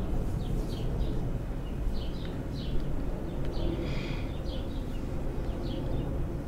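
Small birds chirping repeatedly in short high notes, with a longer call about four seconds in, over a steady low rumble.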